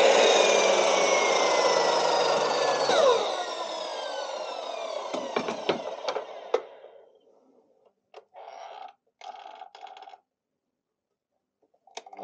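Evolution mitre saw winding down after a cut through oak, its blade whine falling in pitch and fading out over about seven seconds, with a few clicks along the way. Two brief scraping sounds follow in the quiet, and the saw starts up again at the very end.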